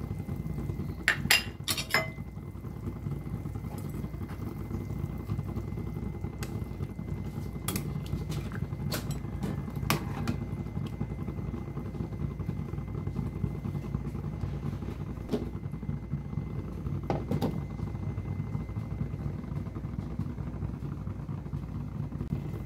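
Pot of pork rib and corn broth boiling on the stove with a steady low rumble, and a few sharp clinks and knocks of a utensil and lid against the pot, the loudest cluster about a second in.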